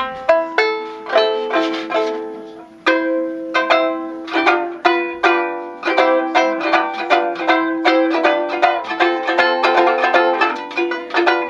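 Banjo ukulele with a resonator and stainless steel flange being played: a few slower plucked notes at first, then, about three seconds in, a steady rhythmic strummed tune.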